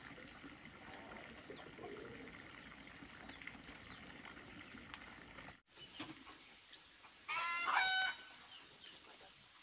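A chicken gives one loud, short call, under a second long, about seven seconds in, over a faint background murmur.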